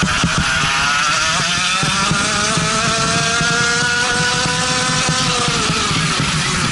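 Racing go-kart engine heard from on board, its pitch rising steadily for the first three to four seconds as the kart accelerates down the straight, then falling near the end as it slows for a corner.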